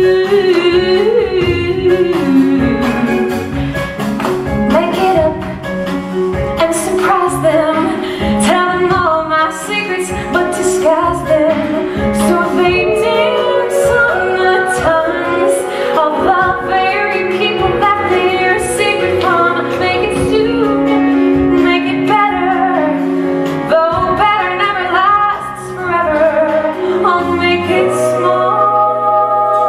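A woman singing a musical-theatre song over band accompaniment with a steady beat, ending in a long held chord near the end.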